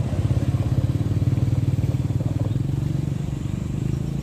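Toyota Hilux pickup's engine pulling under load as the truck crawls up and over a rough ridge on a steep dirt climb, a low, steady engine note with a fast pulsing.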